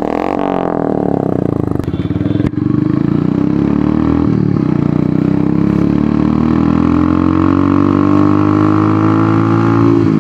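Royal Enfield Hunter 350's 349 cc single-cylinder air-cooled engine breathing through an aftermarket megaphone exhaust. It gives a quick rev at the start, then runs on the move, with the pitch climbing slowly as the bike accelerates.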